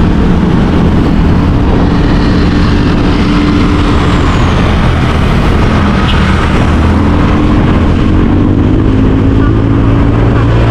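Motor vehicle on the road: a loud, steady rumble of engine and road noise, with a faint engine tone that drifts up and down in pitch.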